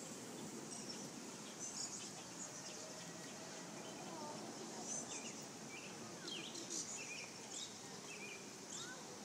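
Background ambience: small birds chirping in short, scattered calls, mostly in the middle of the stretch, over a steady high insect hum and a faint low murmur.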